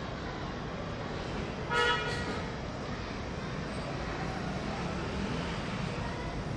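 A short vehicle horn toot about two seconds in, over a steady urban background noise.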